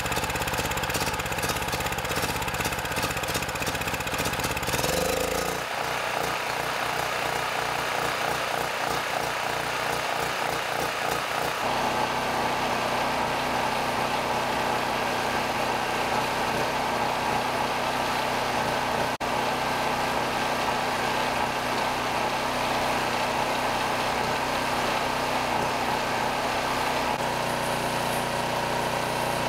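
Predator 4000 generator's 212 cc single-cylinder engine running steadily on propane fed through gas-grill valves, under an electrical load of about 1,350 watts. Its tone changes a few seconds in and again about twelve seconds in.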